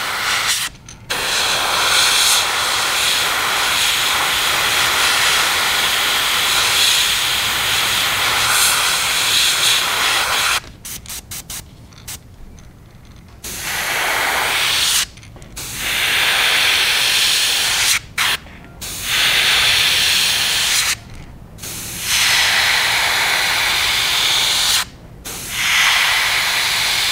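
Gravity-feed airbrush spraying paint: a steady hiss of air that stops and starts as the trigger is let go and pressed again. It runs in long passes with a few short quick puffs partway through.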